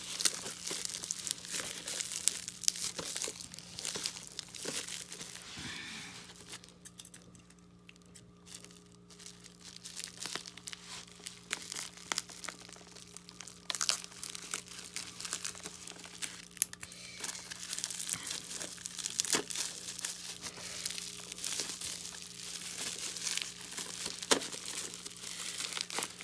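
Bubble wrap around a VHS tape being handled and pulled apart by hand: irregular crinkling, crackling and tearing, thinning out for a few seconds before picking up again, over a faint steady hum.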